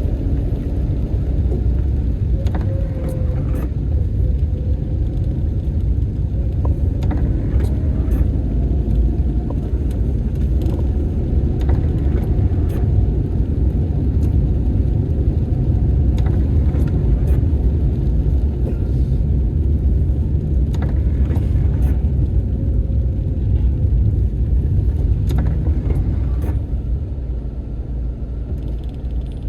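A car driving on a road: a steady low rumble of road and engine noise, with faint scattered clicks and a faint wavering whine that comes and goes.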